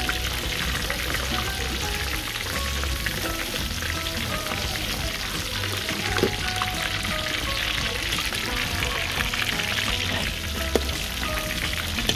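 Battered shrimp deep-frying in a wok of hot oil: a steady crackling sizzle, with a couple of sharp clicks near the middle and near the end.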